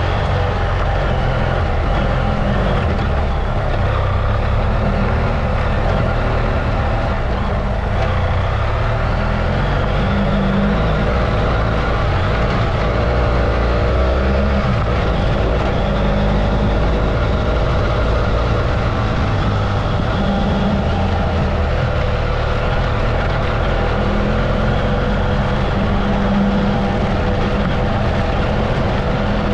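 Adventure motorcycle engine running while riding a dirt road, at a steady level throughout.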